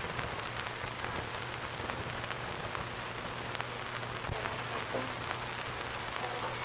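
Steady crackling hiss with a low hum and scattered faint clicks: the surface noise of an old 1950s film soundtrack between lines of dialogue.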